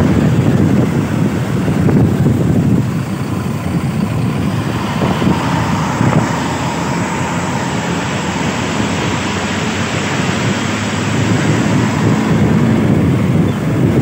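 Road noise at speed close behind and then alongside an intercity coach bus: a steady low rumble of engine and tyres, with wind rushing over the microphone.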